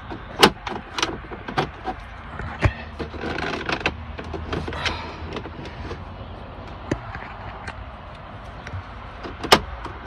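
Plastic dashboard trim panel in a Volvo VNL truck cab being pulled out by hand: scattered clicks and knocks from the snap clips and plastic, the sharpest about half a second in and near the end.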